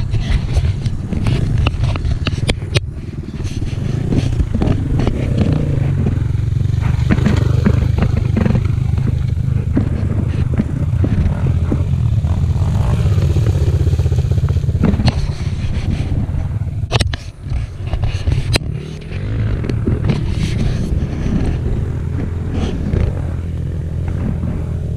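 Off-road motorcycle running and being ridden over rough ground, with a heavy low rumble of engine and wind on the microphone and frequent knocks and clatter from the bike. The sound dips briefly about two thirds of the way through.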